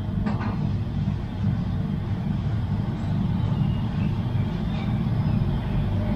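Steady low rumble of background noise, even throughout with no distinct events.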